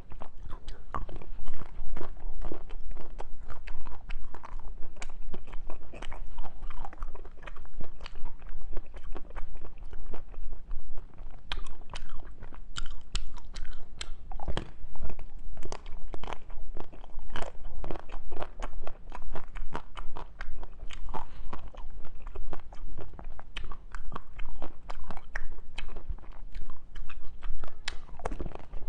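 Close-miked mouth sounds of someone eating: crisp crunching bites and chewing, repeating irregularly throughout.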